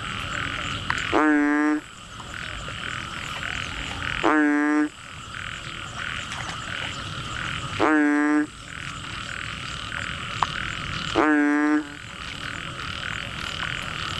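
A frog calling: a short croak repeated about every three and a half seconds, four times, over a steady, higher-pitched pulsing chorus of other calling animals.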